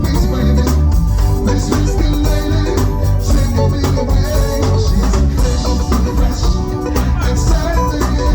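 Band music with a steady beat: bass, drums and pitched instruments playing together, with some singing.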